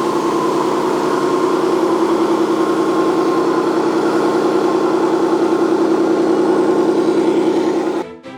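Radio-controlled construction model running: a loud, steady mechanical hum with a fast, even pulse, cutting off suddenly near the end as music starts.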